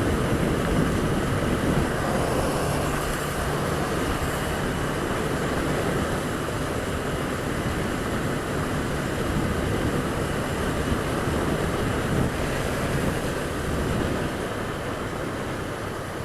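Honda Twister 250 motorcycle under way: its single-cylinder engine running beneath steady wind noise, with tyres on wet pavement. The sound eases slightly near the end.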